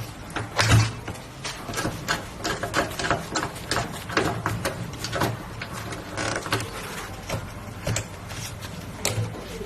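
Computer parts and hardware being handled and fitted: a rapid, irregular run of small clicks, taps and light rattles, with a few louder knocks.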